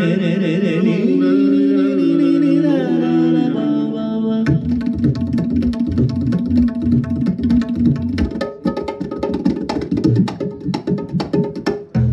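Indian-style music from the show's soundtrack. A long, wavering melody line is held for the first few seconds, then rapid drum strokes come in over a steady drone.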